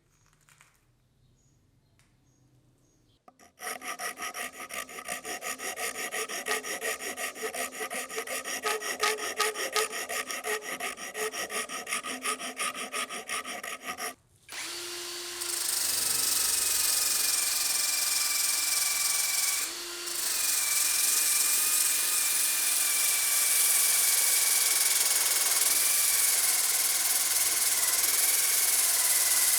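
Tool work on the knife's rusty steel blade. About three seconds in, a fast rhythmic rubbing starts, like filing or sanding strokes. It stops at about fourteen seconds, and after a short break a power tool runs steadily with a constant whine.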